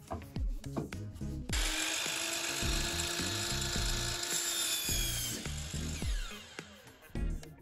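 Miter saw switched on about a second and a half in, its motor and blade running with a high whine while it cuts through a short piece of wood, then switched off and spinning down with a falling whine.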